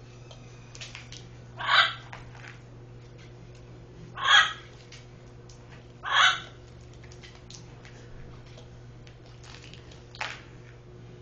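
A pet animal gives three short, loud, hoarse calls about two seconds apart, then a fainter one near the end, over a steady low hum.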